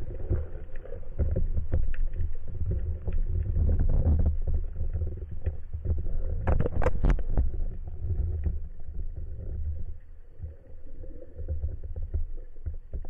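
Underwater sound picked up by a camera mounted on a speargun as the diver swims: an uneven low rumble of water moving past the housing, with scattered clicks and a short cluster of sharper clicks about six and a half seconds in.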